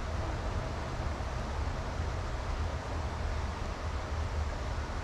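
Steady rushing of a swollen, fast-flowing creek, with a low rumble underneath.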